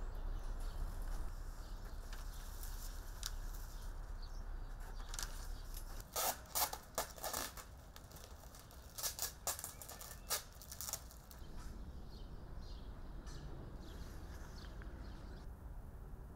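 Brown kraft paper crackling and rustling as it is wrapped around a bouquet, a run of sharp crinkles from about six to eleven seconds in.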